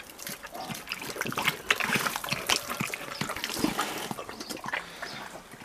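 A brown bear lapping and slurping water from the spout of a plastic watering can, with water trickling and splashing, in quick irregular wet clicks.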